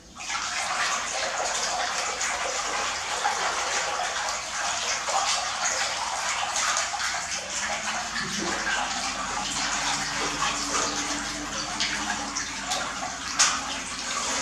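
Water splashing and sloshing steadily as a hand swishes back and forth through a large aluminium basin of water, with a sharper splash near the end.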